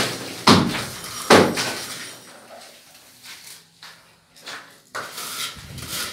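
A few loud knocks, each with a short scraping tail, in the first second and a half, then fainter scattered knocks.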